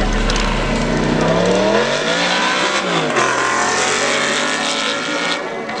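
Audi R8 sports car accelerating past, its engine note climbing and then dropping in pitch as it goes by, about three seconds in.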